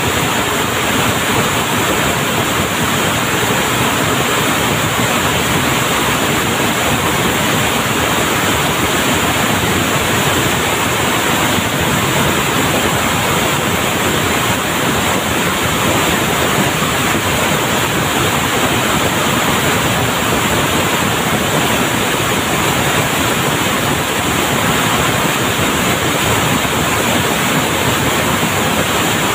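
Steady, loud, even noise of textile mill machinery running, with no distinct rhythm or individual clicks standing out.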